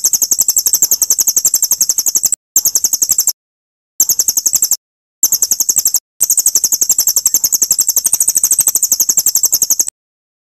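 Songbird's very high, fast trill, pulsing about nine times a second, played as a bird-song training recording ('masteran') for murai batu. It comes in five edited bouts that start and stop abruptly with dead silence between them, and it cuts off shortly before the end.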